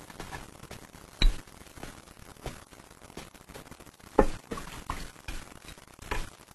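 Scattered clinks and knocks of tableware as soup is served: a ladle and spoons against ceramic bowls and dishes, the sharpest about a second in and about four seconds in.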